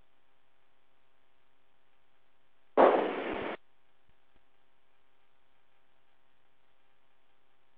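Aircraft radio and intercom audio: a faint steady hum, broken about three seconds in by a sudden burst of radio static. The burst lasts under a second, starts loud and fades.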